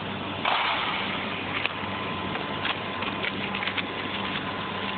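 Clear plastic bag of small parts rustling and crinkling as it is handled, with a burst about half a second in and a scatter of short clicks and taps from the parts, over a steady background hiss.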